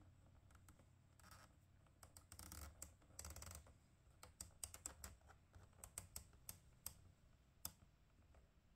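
Faint handling noises from a plastic instrument cluster as gauge needles are set on their shafts: two short scratchy rubs, then about a dozen sharp little clicks of fingers and plastic.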